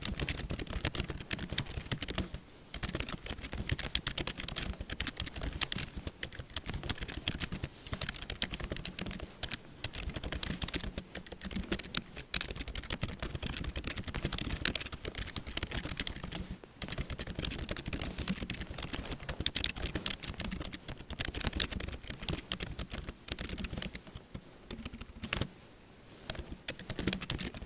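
Rapid typing on a computer keyboard: a dense, continuous stream of keystroke clicks, broken by a few brief pauses.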